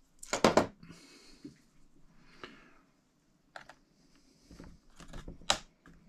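Sharp clicks and taps of hands handling parts inside an opened iMac: a quick cluster of loud clicks at the start, then a few single clicks over soft handling noise.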